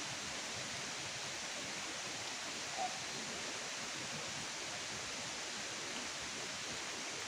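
Steady, even hiss of outdoor night background noise with no distinct events, and one short faint chirp-like sound about three seconds in.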